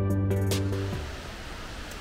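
Background music holding sustained notes, which stops about a second in and gives way to a steady wash of background noise.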